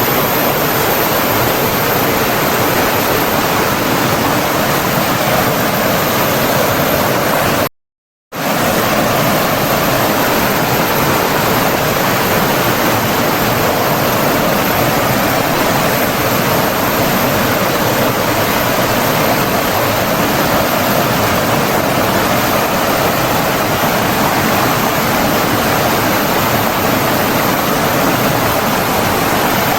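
Flowing water of a stream or waterfall, a steady, even rushing. About eight seconds in it cuts out completely for about half a second, then carries on.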